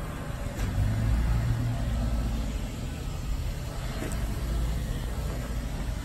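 2008 Chevrolet Silverado pickup's engine idling with a steady low rumble, along with the handling noise of a phone carried around the truck and a light tap about four seconds in.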